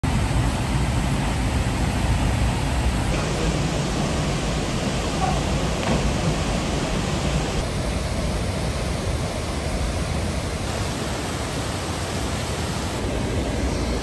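Seven-metre river waterfall: a loud, steady rush of falling water, heaviest in the low end, its brightness shifting slightly a few times.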